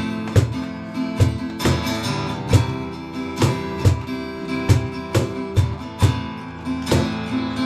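Worship band playing an instrumental passage between verses: acoustic guitar strumming chords over a steady beat, without singing.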